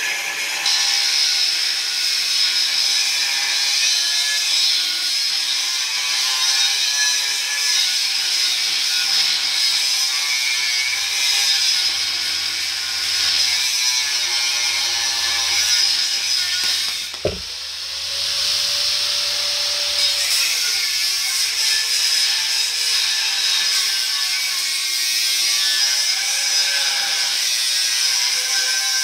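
Angle grinder cutting through a steel truck frame rail: a steady grinding hiss over a motor whine that wavers as the pressure on the cut changes. About seventeen seconds in it eases off for a moment with a single knock, then picks back up and keeps cutting.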